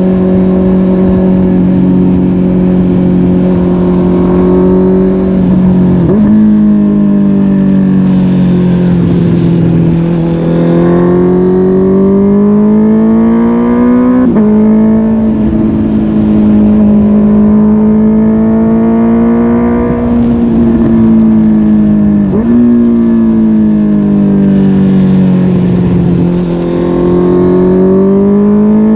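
Honda CB650R's inline-four engine running through a MIVV GP PRO Carbon aftermarket exhaust while riding. The revs hold steady, then climb and fall with the throttle, with sudden jumps in pitch about six seconds in, around fourteen seconds and past twenty-two seconds, typical of gear changes.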